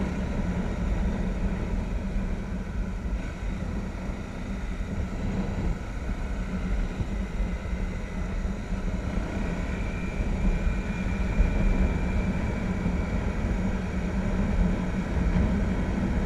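Motorcycle engine running steadily as the bike rides along, heard from a camera mounted on the bike, with a low rumble of wind and road noise underneath.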